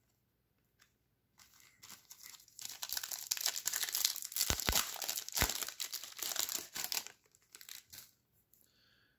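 A trading card pack's wrapper being torn open and crinkled, a dense crackling that runs for about five seconds.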